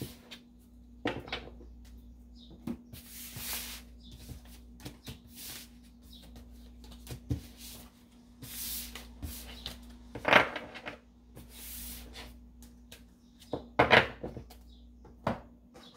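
Tarot cards being gathered off a tabletop and handled: short swishes of cards sliding across the table and together, with several sharp knocks and taps of the deck against the table.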